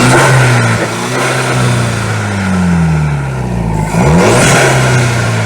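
Mk V VW Golf GTI's 2.0-litre turbocharged four-cylinder engine revved in neutral, breathing through a K&N aftermarket cold-air intake. The revs fall away from a high blip, then a second sharp blip comes about four seconds in, with a rush of intake air noise at its peak, and the revs fall back again.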